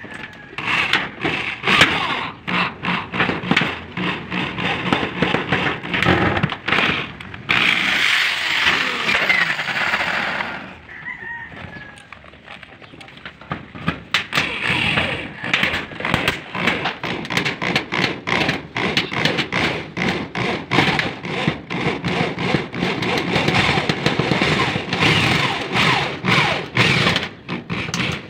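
Corded electric drill driving tek screws through corrugated galvanized roofing sheet, with a rapid, irregular run of sharp clicking and rattling. It runs continuously for a couple of seconds about a third of the way in, then there is a brief lull before the clatter resumes.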